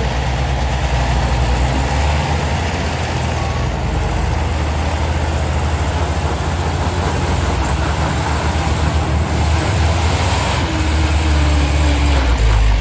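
Heavy diesel truck engine working hard under load while towing a loaded pickup uphill on a chain, a steady low rumble that grows slightly louder as the truck comes close near the end.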